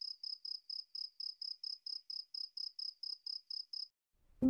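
Cricket chirping in a steady, even rhythm, about six short high chirps a second, stopping about four seconds in.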